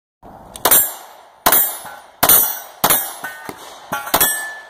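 Pistol firing a string of five loud shots, the first four roughly three-quarters of a second apart and the last after a longer pause, each followed by a ringing tail. A faint ringing tone lingers after some of the later shots.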